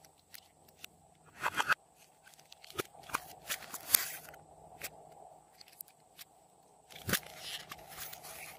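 A thin clear plastic box of clay is picked up and handled, crackling and clicking in short bursts: about a second and a half in, around three to four seconds in, and again near the end.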